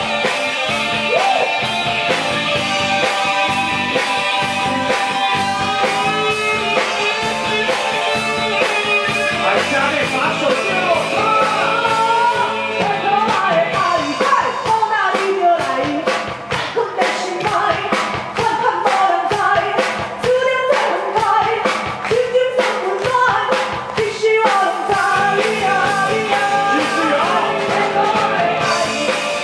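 Rock song with a lead singer over a band, a steady drum beat running through it.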